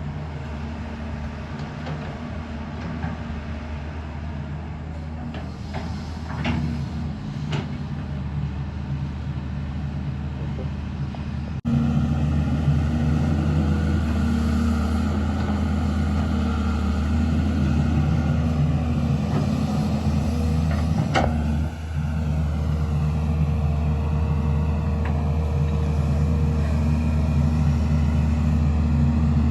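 Excavator's diesel engine running steadily, stepping up suddenly in loudness about twelve seconds in, with a few sharp knocks.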